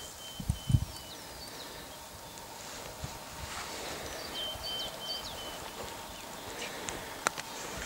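Songbirds calling: short, high chirps that drop in pitch and flat, high whistled notes, repeated over a faint steady background. Two low thumps come about half a second in, and a single sharp click a little after seven seconds.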